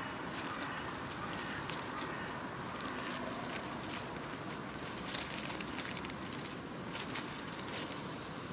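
A hedgehog foraging through leaf litter and grass: irregular rustling and small crackling clicks over a steady background rush.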